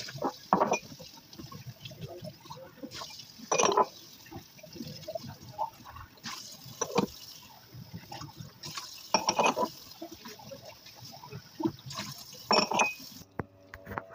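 Tap water running into a kitchen sink while glass mugs and drinking glasses are rinsed, the glass knocking and clinking against the sink and counter a handful of times.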